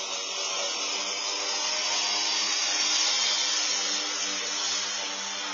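EGO Power+ Select Cut XP 56-volt battery self-propelled lawn mower running steadily, its motor and blades whirring as it cuts wet grass about 4 inches tall.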